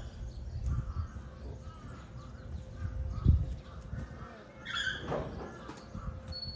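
A crow cawing: one loud harsh call falling in pitch about five seconds in, with fainter calls before it. A dull low thump sounds about three seconds in.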